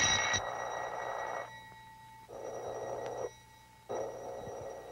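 Cartoon sound effect of a rotary telephone bell ringing from inside the cat that has swallowed it. One ring dies away, then two more follow, each about a second long with a short gap between.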